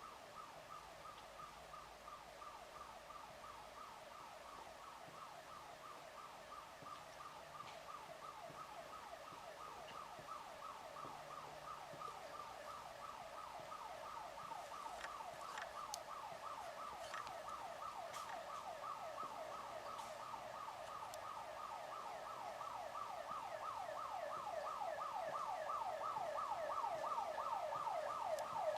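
Building alarm siren sounding a rapid, repeated sweeping tone that grows steadily louder.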